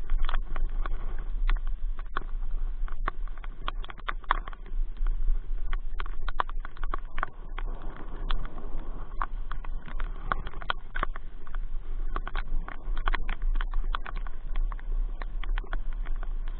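Rain falling, with many irregular sharp taps of drops landing close to the microphone over a steady low rumble.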